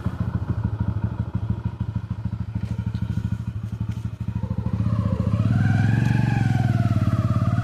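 Heavy diesel engine of construction machinery running with a low, even chugging. About four and a half seconds in it gets louder, and a whine rises and falls above it.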